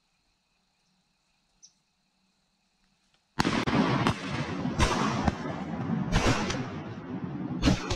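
Sudden loud rustling of grass and clothing as a hunter rises from cover and swings up a shotgun, then three sharp shotgun shots about a second and a half apart, fired at a flock of ducks flying overhead.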